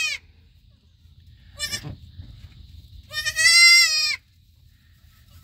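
Newborn goat kid bleating: one high, wavering bleat about three seconds in, after the tail of another bleat at the very start. A short noise comes in between.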